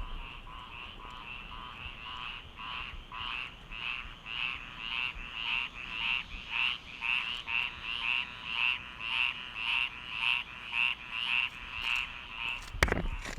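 Frogs calling loudly from a drainage area: a steady run of repeated calls, about two a second, growing louder over the first half. A sharp knock comes near the end.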